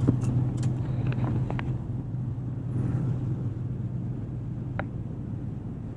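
Highway road noise heard inside a moving Toyota's cabin: a steady low hum of engine and tyres over a rumble, with a few faint ticks.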